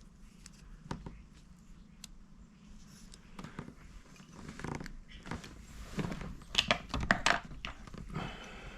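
Small parts of a disassembled wiper switch being handled and cleaned: scattered light clicks and short scrapes, with a run of sharper clicks about six to seven seconds in.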